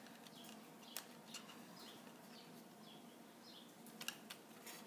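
Near silence: faint room tone with a few light clicks, about a second in and again near the end, of wire ends handled at a Radio Shack 150-in-1 kit's spring terminals, and several faint short high chirps.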